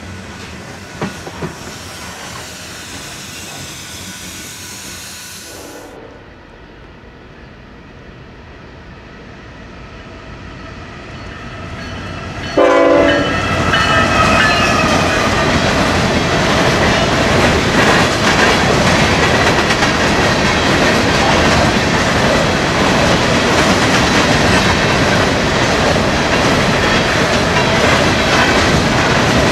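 Freight train cars rolling past on the rails, their wheels clicking over rail joints. The rolling is softer for the first part, then gets much louder about halfway in, with a short tone at the moment it jumps.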